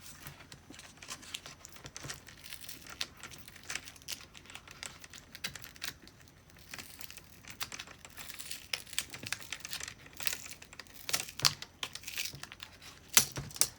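Adhesive tape crinkling and tearing as it is peeled by hand off the back of a laptop's broken display panel, a dense run of small crackles with a few sharper clicks in the last few seconds.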